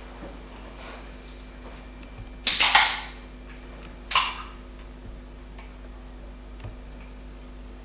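Aluminium drink cans snapping open: a loud crack and hiss about half a second long, then a shorter one about a second and a half later.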